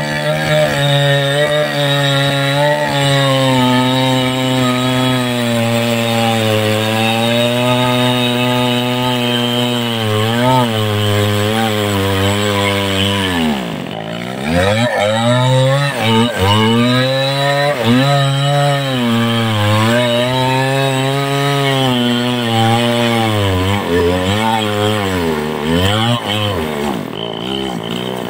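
Two-stroke chainsaw running hard under load as it cuts into a large tree trunk. The engine pitch wavers as the chain bites, drops sharply for a moment about halfway through, then climbs back up.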